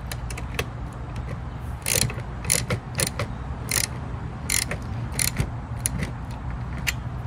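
Socket ratchet fitted with a 10 mm socket clicking in short, irregular runs as it tightens the bolts on a windshield mounting bracket.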